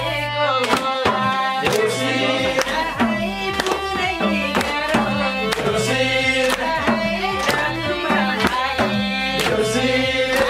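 Nepali folk music: a madal hand drum beating a steady rhythm under an electronic keyboard melody.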